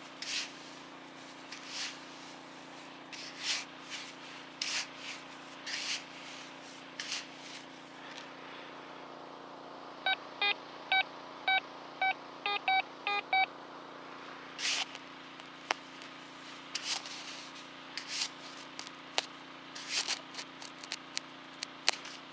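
Hand digging and scraping through beach sand in short strokes about once a second, over a steady low hum. About ten seconds in, a metal detector sounds a quick run of about a dozen short electronic beeps, its target signal.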